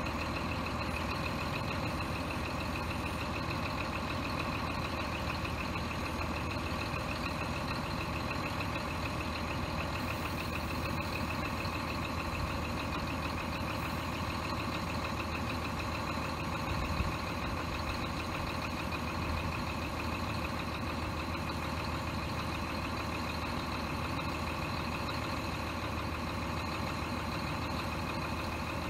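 Scania R420 truck's straight-six diesel running steadily at idle, driving the hydraulics of its truck-mounted loader crane as the boom is folded.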